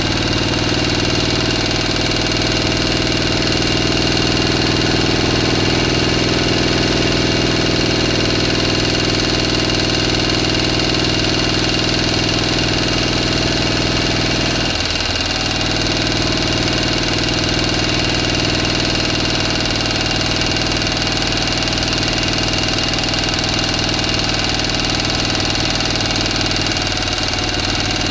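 A motor running steadily at an even pitch, with a brief wavering in its lower tones about halfway through.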